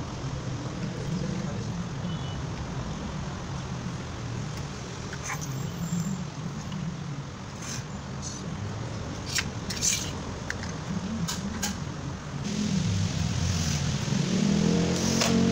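Scattered small clicks of wiring connectors being plugged onto a front-loading washing machine's control board, over a steady low rumble. Near the end a cordless drill-driver whirs, driving screws into the board's metal cover.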